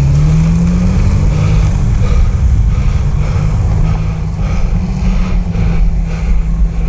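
A vehicle engine rises in pitch as it accelerates, then runs at a steady pitch over a heavy low rumble, and drops away near the end.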